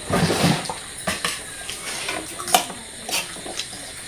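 Cutlery clinking and scraping against plates during a meal, with a rustling burst at the start and a few sharp clinks scattered after it.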